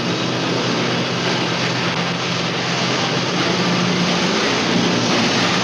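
Steady industrial machinery noise: a constant hiss with a low, even hum underneath.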